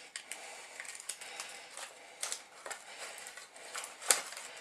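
Aluminium foil takeaway tray being bent and peeled away from a baked pizza by hand: irregular crinkling and crackling, with a sharper crack about four seconds in.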